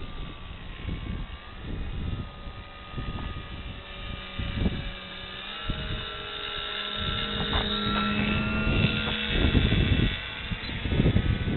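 Motor and propeller of a foam RC airplane in aerobatic flight, a whine whose pitch steps up and down with the throttle, over gusty wind rumble.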